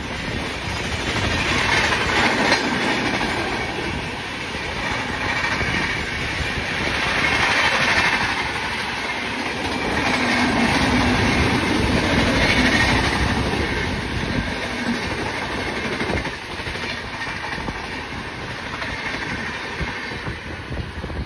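Coaches of a passing express train, LHB stock, rolling by at speed: wheels clattering rhythmically over the rail joints under a steady rolling roar that swells and eases as the bogies go past.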